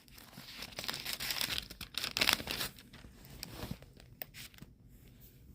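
Paper rustling and crinkling in irregular crackles with a few sharp clicks, dying down in the last second or so.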